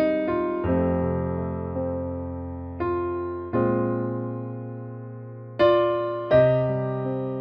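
Background music: slow electric piano chords, each struck and left to ring and fade, with new notes about every second or two.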